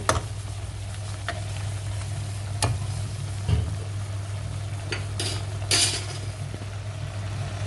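Thick onion-tomato chilli sambal paste simmering and sizzling in a metal kadai, over a steady low hum. A few sharp clicks and pops are heard, the loudest about two and a half seconds in and near six seconds in.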